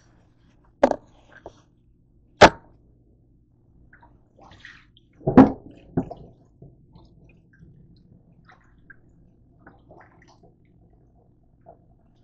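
A few sharp knocks and clanks from a container being handled at a stainless-steel kitchen sink, the loudest about two and a half and five and a half seconds in, followed by small scattered clinks.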